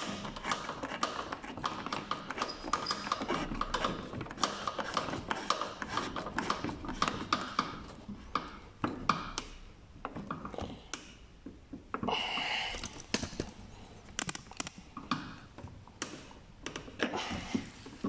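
Screwdriver working the screw that holds a car's front turn signal housing: rapid small clicks and taps that thin out after about eight seconds, with a short rustle about twelve seconds in.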